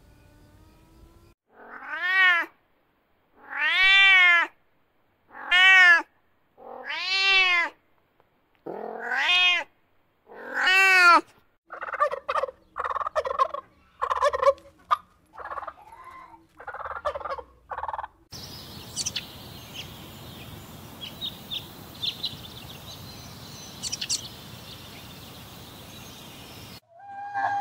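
Six drawn-out animal calls, each rising and then falling in pitch and about a second and a half apart, followed by a male wild turkey's quick, choppy gobbling calls. Then a steady hiss of forest ambience with faint high chirps.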